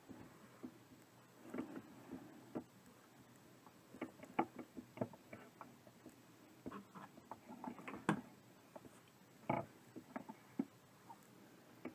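Faint handling noises: irregular rustles, scrapes and small taps as fiberfill stuffing is pushed into a plush teddy bear with a stuffing tool, with a few sharper clicks about four, eight and nine and a half seconds in.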